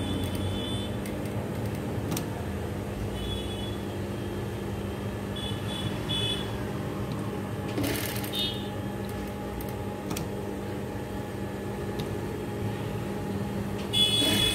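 Industrial single-needle sewing machine running steadily with a constant motor hum while stitching a seam. There are a few short high chirps now and then, and a louder burst near the end.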